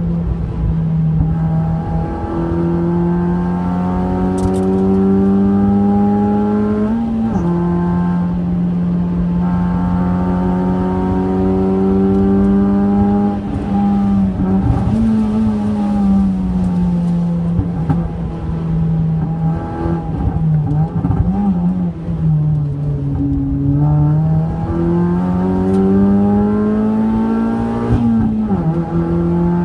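Honda Fit RS's 1.5-litre four-cylinder engine heard from inside the cabin under hard acceleration on track. Its note climbs, drops sharply at an upshift about seven seconds in, and climbs again. It then falls slowly as the car slows for a corner, and rises again under throttle, with a brief dip near the end.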